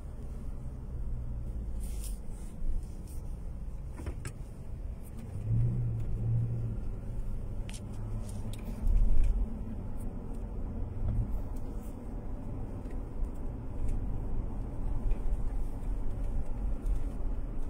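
Steady low rumble of a car being driven, heard from inside the cabin, with a few light clicks and a couple of brief low thumps.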